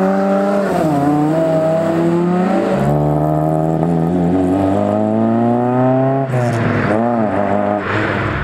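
Fiat Ritmo Abarth 130TC Group A-spec twin-cam four-cylinder on Weber twin-choke carburettors, with a fully open exhaust, accelerating hard away. The revs climb, drop back briefly at gear changes about one and three seconds in, then climb again.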